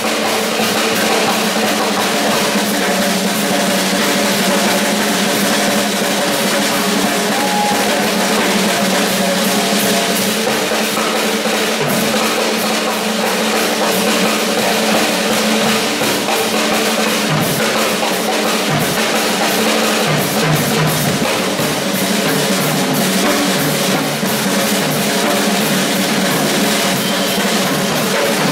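Two drum kits played at once in a drum battle: fast, dense drumming on bass drum, snare and cymbals without a break.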